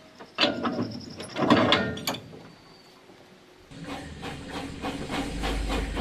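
Metal clanks of a link-and-pin coupling being set on a narrow-gauge field railway wagon, the loudest about a second and a half in. Then a small field railway train starts rolling: a steady hiss with fast, even clatter from the wheels and a low rumble that grows louder.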